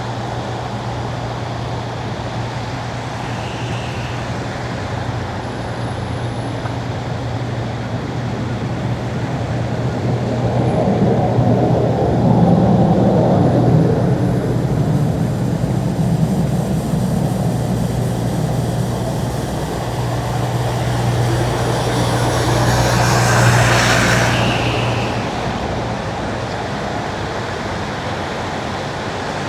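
A car driving on a wet road: steady tyre and road noise over a low hum. The noise swells twice, the second time with a brighter, hissing sweep about three-quarters of the way through.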